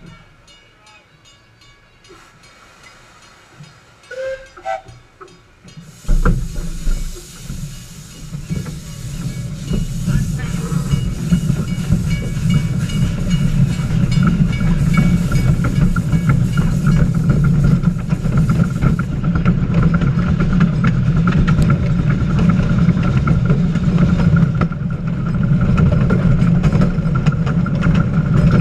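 Small steam locomotive starting away: after a quiet start, a sudden loud hiss of steam blowing out around the wheels begins about six seconds in, over a heavy low rumble. The hiss eases after about a dozen seconds, leaving the locomotive running along the track with a steady rumble.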